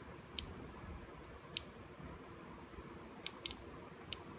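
Faint, sharp clicks, five of them at uneven spacing, over a low background hum: small parts being handled and pressed while the old stepper motor is desoldered from an instrument cluster circuit board.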